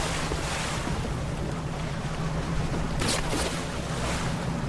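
Boat engine running steadily under wind and water noise, with a brief rush of noise about three seconds in.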